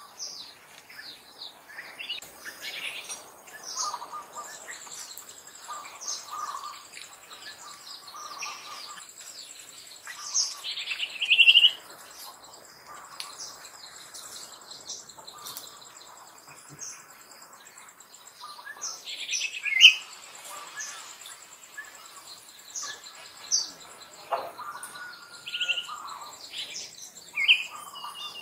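Many small birds chirping, short high chirps overlapping one another, with two louder calls about a third and two-thirds of the way through.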